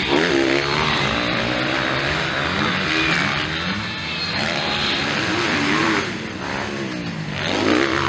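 250cc MX2 motocross bike engines racing, revving up and dropping back again and again as the bikes work through the turns and accelerate.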